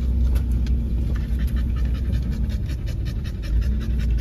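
A dog panting rapidly and evenly close by, over the steady low drone of a Land Rover Discovery 3 crawling along an off-road track.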